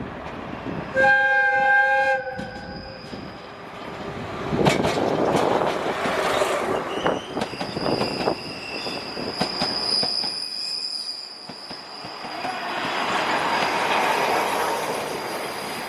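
A train's whistle sounds once, about a second in, for about a second. The train then runs by with rumbling and clicking wheels, and a high, steady squeal comes in about seven seconds in and carries on.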